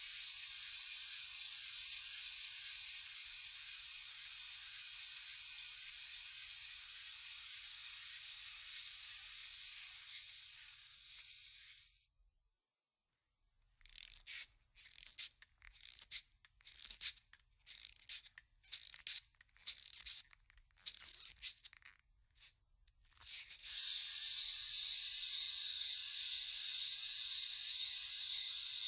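Cartoon wind-up toy sound effect: a steady high whir for about twelve seconds, then a short pause, then about fifteen short irregular bursts, then the steady high whir again.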